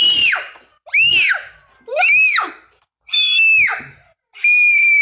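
Young child shrieking in a very high-pitched voice: four short rising-and-falling squeals about a second apart, then one long held squeal near the end.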